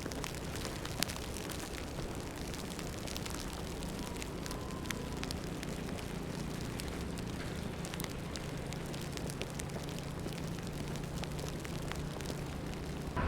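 Snowstorm street ambience: a steady low city traffic drone under a dense, irregular crackle of falling wet snow and sleet.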